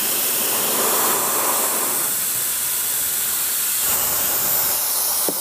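Small high-speed brushless hair-dryer motor and impeller running at 12 volts, giving a steady hiss-like rush of air. The noise is the fan cutting the air; the motor itself is nearly silent.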